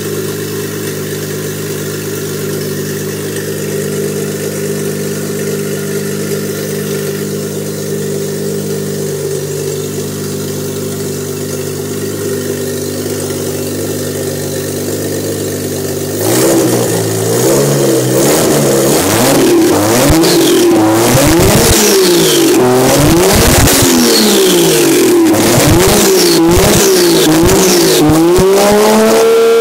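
Toyota 1JZ twin-turbo straight-six engine idling steadily, then from about halfway revved by hand at the throttle again and again, its pitch rising and falling in quick blips.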